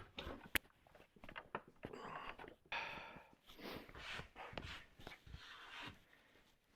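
Scattered knocks and clicks of parts and tools being handled on a workbench, with a sharp click about half a second in, and short breathy rustles between them.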